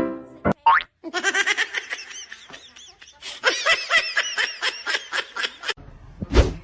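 A long run of high-pitched laughter, fast, short syllables that rise and fall in pitch, with a short rising squeak just before it and a single thud near the end.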